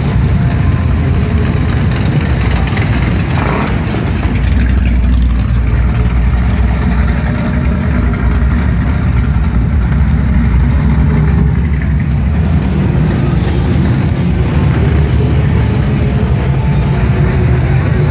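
Steady low engine rumble of street traffic, heard from inside a slowly moving car.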